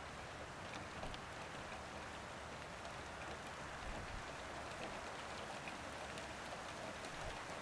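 Heavy rain falling steadily outdoors, a continuous even hiss with scattered individual drops ticking on surfaces.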